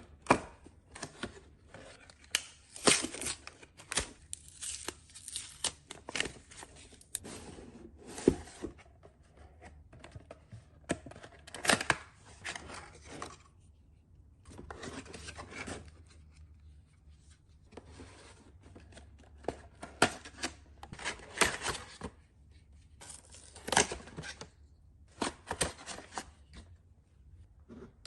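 Packaging being opened and handled: irregular tearing and rustling, with sharp clicks and knocks scattered throughout.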